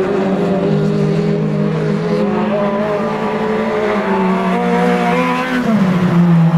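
Several race car engines running hard together at high revs, their pitch rising and falling as the cars accelerate and lift off around an ice track; one engine note drops away sharply near the end.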